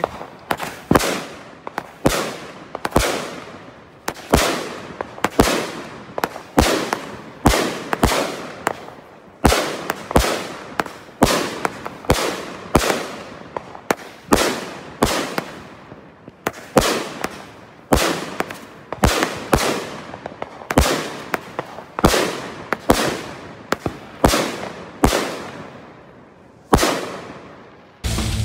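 Aerial fireworks in a finale barrage: sharp bangs about two a second, each with an echoing tail. At the very end the bangs stop suddenly and music cuts in.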